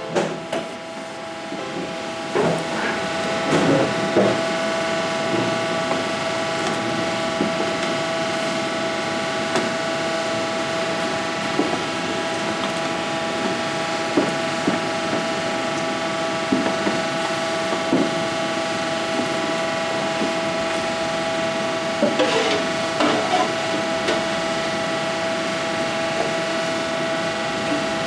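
Wooden spoon scraping and knocking irregularly in a large pot of yam porridge as it is stirred and mashed with stew, over a steady pitched hum of kitchen equipment.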